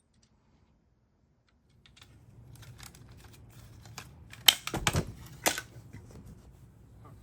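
Small clicks and taps of hard plastic as a Dyson V10 vacuum's housing is handled and prised open, starting about two seconds in, with a few louder snaps a little past the middle.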